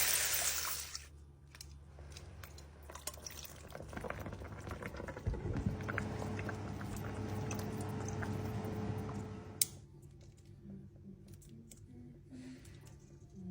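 Frying sizzle fading out in the first second, then liquid pouring and dripping with scattered light clicks.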